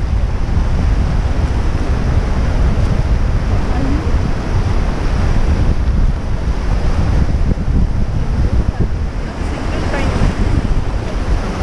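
Rushing whitewater of a rocky mountain river around an inflatable raft, a steady loud wash of water, with heavy wind rumble on the microphone.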